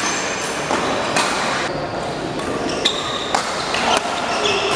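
Badminton rally: several sharp racket hits on the shuttlecock, with short high squeaks of court shoes on the floor, over the steady background noise of a large hall.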